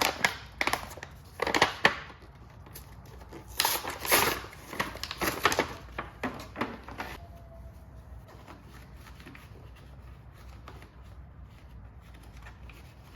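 Crinkling and rustling of handling, a run of irregular bursts over about seven seconds as the replacement lawn mower air filter is handled, then it dies down to a faint steady background.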